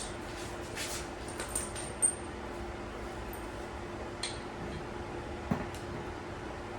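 A few scattered light metallic clinks and taps as bolts and steel suspension parts are handled, over a steady hum.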